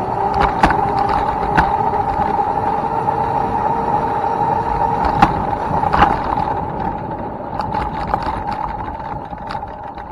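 Electric dirt bike's motor whining steadily as it is ridden, with scattered clicks and knocks as the bike goes over rough ground. The whine gets quieter in the second half.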